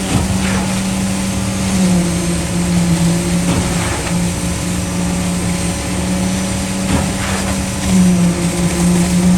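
Diesel engine of a concrete mixer truck running at a steady speed, a constant low hum with a few brief knocks.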